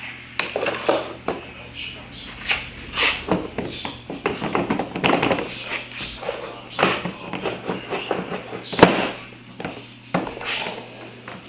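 Scattered clicks, taps and knocks of tools and plastic parts being handled while the snowmobile's hood and air-intake hose clamp are worked loose, with one sharp knock about nine seconds in.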